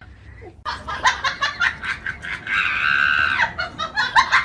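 A person laughing hard in rapid bursts, breaking into a long, high-pitched scream about two and a half seconds in, then laughing again.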